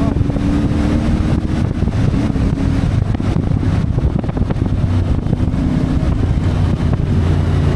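CFMoto 450MT parallel-twin motorcycle engine running under way, with wind noise on the microphone; the engine note drops about three seconds in.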